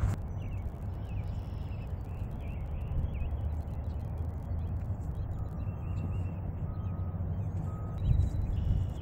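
Wind buffeting the microphone in an open field, a steady low rumble. Faint bird chirps come and go, and three short, evenly spaced beeps sound in the middle.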